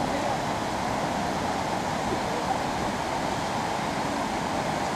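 Cascading waterfall and the shallow stream below it, a steady rush of water.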